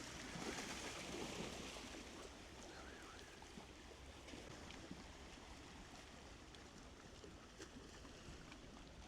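Faint, steady wash of small waves on the water, a little louder in the first couple of seconds, with a few light clicks.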